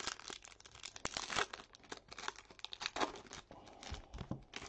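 Crinkling and tearing of a foil trading-card pack wrapper, a rapid run of crackles that stops abruptly near the end.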